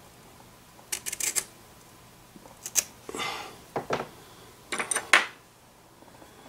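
Off-camera handling of a roll of blue painter's tape: a few clusters of sharp clicks and short rasps, the loudest about five seconds in.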